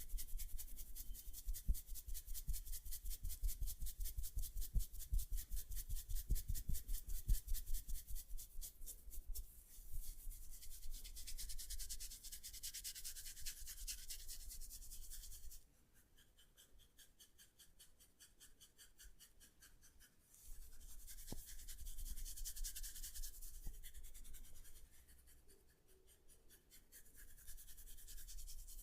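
Hands rubbing and working through hair on the scalp during a head massage, close to the microphone. For about the first ten seconds it goes in quick rhythmic strokes, about four a second. After that comes steadier rubbing in stretches with quieter pauses between.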